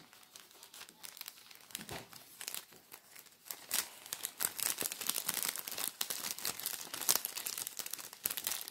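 Thin clear plastic bag crinkling as hands handle and pack it, a rapid irregular crackle that grows louder and busier about three and a half seconds in.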